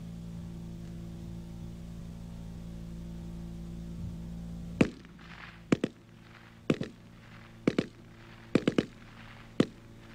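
Browning Automatic Rifle in .30-06 firing short bursts of one to three rounds, about one burst a second, starting about halfway in. Before the shooting there is only a steady low hum.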